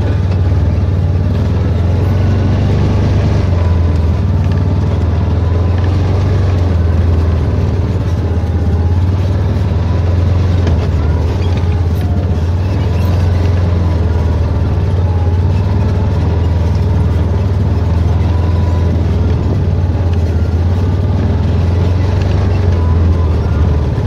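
Side-by-side utility vehicle's engine running with a steady low drone as it drives along.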